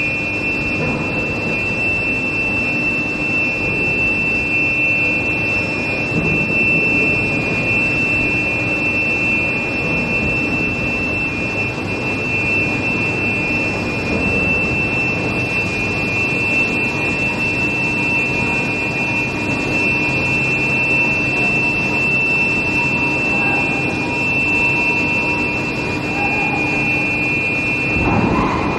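Steel plate induction reheating furnace running: a steady high-pitched whine of two close tones over a continuous mechanical hum and noise.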